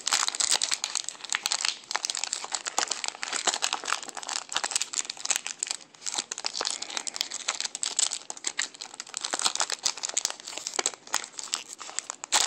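Foil Pokémon booster-pack wrapper crinkling and tearing as it is opened and handled: a dense, continuous run of sharp crackles.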